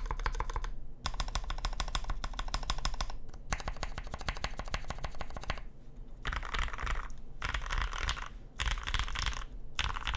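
Typing on a Swiftrax Equator stacked-acrylic keyboard with lubed milky-top Gateron Yellow linear switches and an acrylic plate, with a deep, full sound. Three long runs of fast keystrokes come first, then four shorter, denser bursts of rapid key presses in the last few seconds, with short pauses between them.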